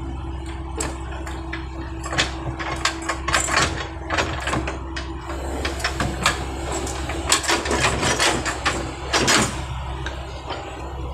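Backhoe's diesel engine running steadily, with many sharp metallic clanks and knocks from the machine coming and going over it.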